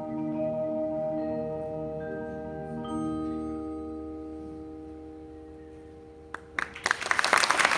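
An indoor percussion ensemble's mallet keyboards ringing out sustained chords, a new chord struck about three seconds in and left to die away: the closing chord of the show. Audience applause and cheering break out near the end.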